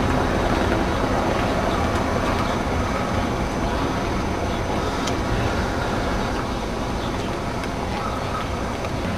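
Wind buffeting the camcorder microphone: a steady low rumble with hiss and no distinct events.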